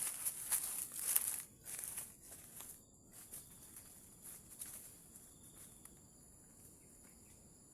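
Rustling and crunching of movement in forest undergrowth for the first few seconds, fading out, over steady high-pitched insect drone in the forest.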